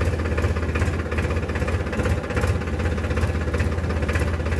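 Powertrac Euro 50 tractor's three-cylinder diesel engine running steadily, heard close up from the driver's seat, with a strong low hum.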